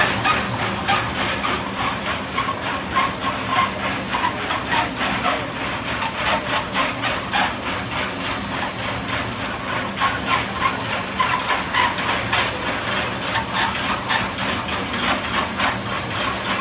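Fin tube production machine running: a steady low hum under a fast, even run of sharp metallic clicks, several a second.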